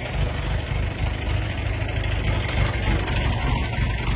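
Diesel engine idling steadily with a fast, even low pulse.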